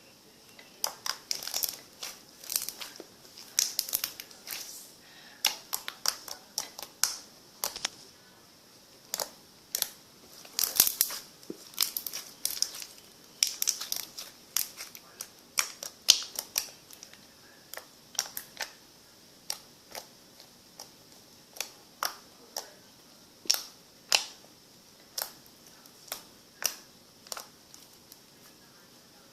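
Homemade contact-lens-solution slime being squeezed and poked by hand, making irregular wet clicks and pops a couple of times a second.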